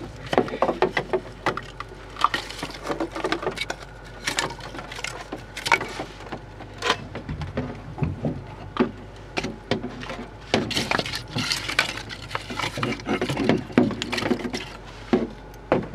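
Sticks of kindling and small wood blocks being pushed into a steamboat boiler's metal firebox by hand, giving a long irregular run of wooden clatters and knocks against the metal.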